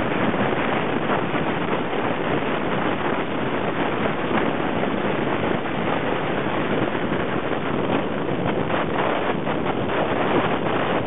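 Steady road and wind noise from a car driving at highway speed, heard from inside the car.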